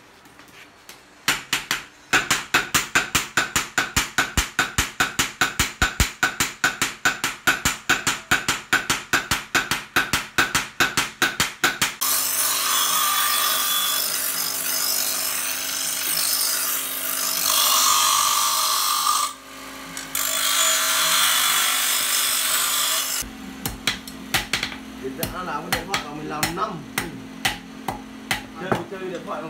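A hand hammer forges a steel knife blade on a round steel post anvil, ringing blows about four a second for some ten seconds. An electric bench grinder then grinds the blade for about ten seconds, stopping briefly partway through. Lighter, uneven hammer taps on the anvil follow near the end, over a steady low hum.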